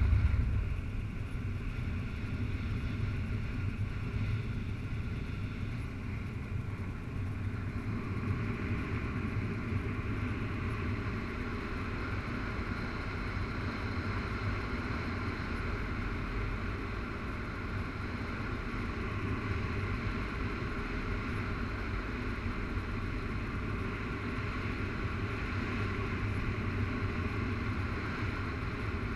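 Steady rush of airflow across the camera microphone of a paraglider in flight, louder for a moment at the start.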